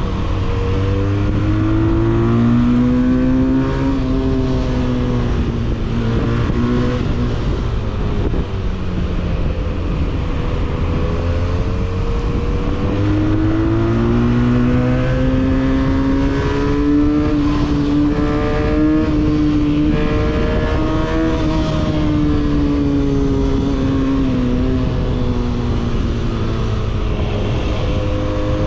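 Benelli 302S motorcycle's 300cc parallel-twin engine heard on board through its exhaust while riding: the revs climb in the first few seconds and ease off, climb again around halfway and hold, then drop back a few seconds before the end.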